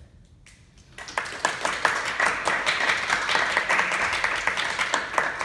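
A small group applauding, beginning about a second in after a brief hush and continuing as dense, rapid clapping.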